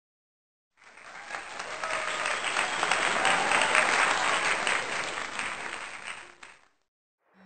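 Crowd applause, many hands clapping, laid over a channel intro. It fades in about a second in, swells, then fades away shortly before the end.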